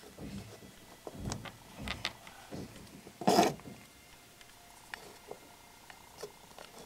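Small plastic clicks and knocks as agitator dogs are handled and pressed into the slots of a washing machine agitator's cam, with one sharper knock about three seconds in.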